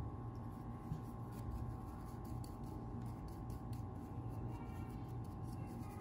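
Faint scratching and light clicks of an oiled bristle brush worked over a Glock recoil spring assembly, over a steady low room hum.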